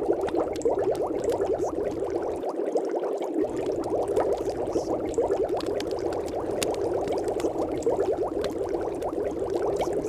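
Steady, dense bubbling like boiling water, without a break, its energy in the middle range. The deep low end drops out for about a second, roughly two and a half seconds in.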